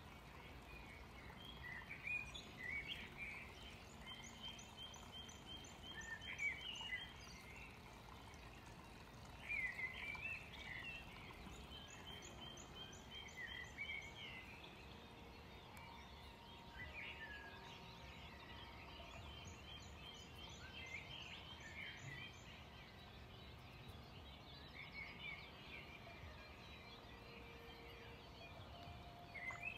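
Songbirds singing faintly over a low outdoor background hiss: short chirping phrases with quick trills, repeated every few seconds.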